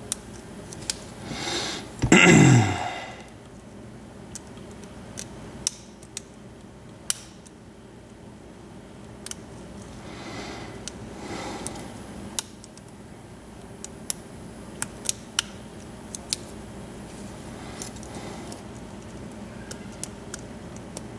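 Lock picks working in the keyway of a Pacific Lock 100A five-pin padlock: scattered small sharp metallic clicks and faint scraping as pins are set under tension; the lock is hard to pick because of collapsed springs. About two seconds in there is a brief louder noise with a falling pitch.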